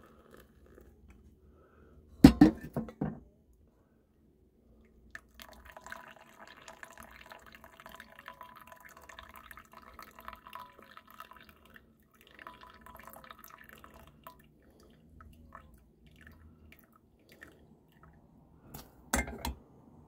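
Hot water poured from a small saucepan into a paper pour-over coffee filter and dripping through into a mug. There is a loud clatter of cookware about two seconds in and another near the end.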